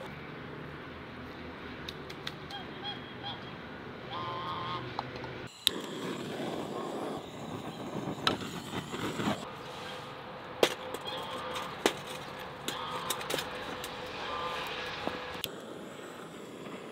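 Geese honking now and then in short bursts of calls, with a few sharp clicks and knocks in between.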